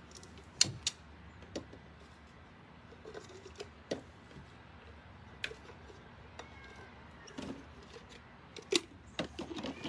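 Scattered sharp clinks and knocks of a glass coffee carafe being handled while a raw steak, broccoli and asparagus are stuffed into it. The loudest come about half a second in and near the end.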